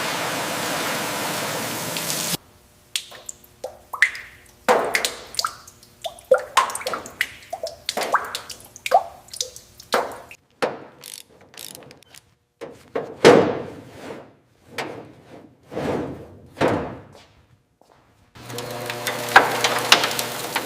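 Workshop handling sounds: a string of separate knocks and clinks, some with a short ring, as tools and parts are handled. A steady hiss runs until it cuts off abruptly a couple of seconds in, and another steady hiss with a low hum comes in near the end.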